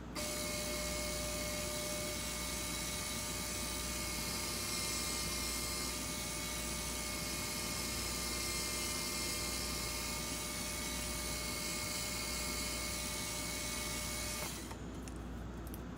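Belt sander running steadily: a constant motor whine with a bright abrasive hiss, which cuts off about fourteen and a half seconds in, leaving a low hum.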